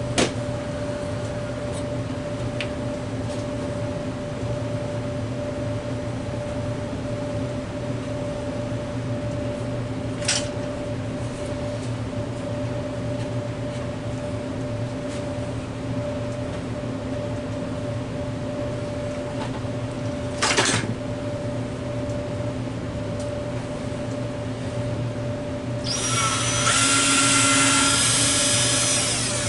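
A steady machine hum with a few sharp clicks, then about 26 s in a power drill starts, louder, drilling into wood.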